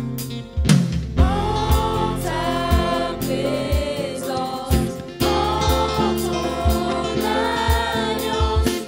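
Choir singing a Christian song over a band, with bass and a steady drum beat.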